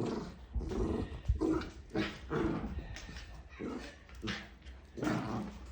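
Dogs growling in short, repeated bursts while tussling with a cat.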